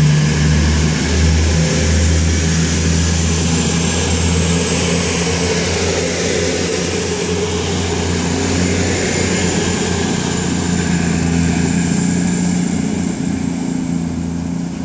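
CrossCountry Class 221 Super Voyager diesel-electric multiple unit departing, its underfloor diesel engines droning steadily under power as the cars pull away. A high whine rises slowly in pitch through the middle, and the sound eases slightly near the end as the train draws off.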